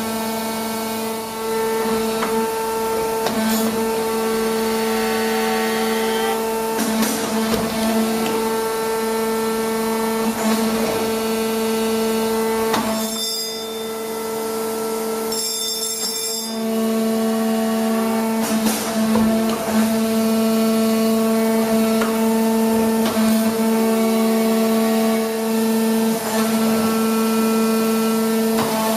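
Hydraulic power unit of an Eaton Leonard VB40 CNC tube bender running with a steady hum, with scattered knocks as the clamp and bend arm move. The hum drops away for about three seconds around the middle, then returns.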